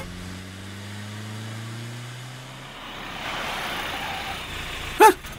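A car engine running as the car approaches, its steady note rising slightly, followed by a rushing noise as it passes, and a brief, loud, high-pitched squeal near the end.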